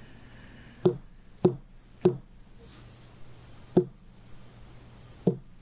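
A battery of ceremonial knocks, as given in a lodge initiation rite: three evenly spaced knocks, a pause, a single knock, then one more near the end that begins the next set.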